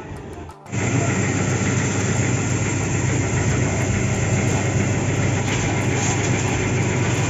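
Pressure washer running, its motor and pump humming steadily under the hiss of the water jet spraying a motorcycle. The sound starts abruptly about a second in.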